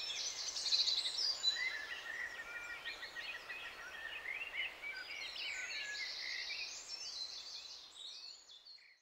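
Several birds singing at once, a mix of short chirps, whistled notes and rapid trills, over a faint outdoor hiss. The birdsong fades away near the end.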